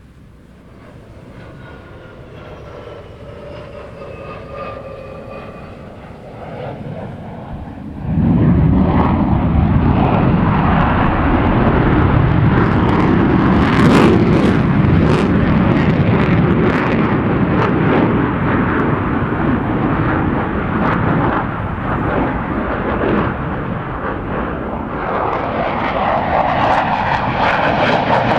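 Military fighter jet on afterburner: a falling engine whine growing louder as it approaches, then about eight seconds in a sudden jump to a loud, crackling rumble that stays loud.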